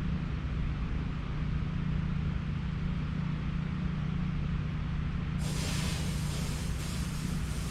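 Lawn sprinklers switching on about five seconds in: a sudden, steady hiss of spraying water that pulses slightly. Under it, a steady low engine hum.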